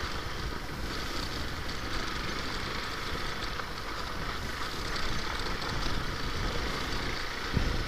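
Hero Xpulse 200 4V motorcycle being ridden: steady running noise from its single-cylinder 200 cc engine mixed with wind, with no sharp events.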